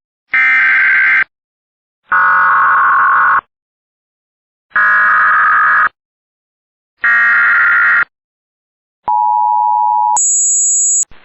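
Emergency Alert System data tones: four loud, buzzy bursts of about a second each, two seconds apart, that introduce the alert. They are followed by about a second of the two-tone attention signal near 900 Hz, which cuts to a short high-pitched pair of tones near the end.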